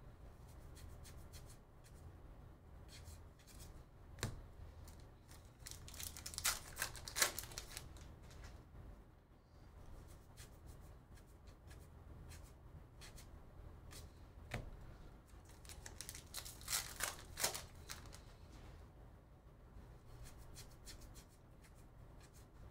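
Cardboard baseball cards sliding across one another as a stack is thumbed through by hand: soft scratchy ticks, with two spells of louder scraping, about six and sixteen seconds in.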